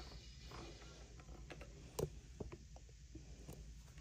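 Faint plastic handling clicks and taps as the handset cord is fitted into the back of an IP desk phone, with one sharper click about halfway through.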